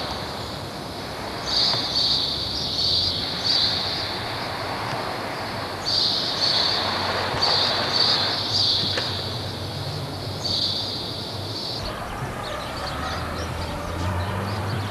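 High-pitched chirping calls, pulsing rhythmically in several bursts and stopping about twelve seconds in, over a faint hiss.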